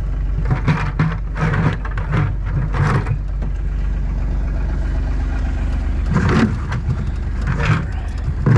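A vehicle engine running at a steady idle, with some intermittent knocks over it.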